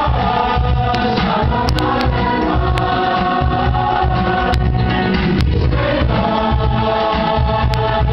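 Music with voices singing over a steady, pulsing bass beat, played loudly for a dance performance.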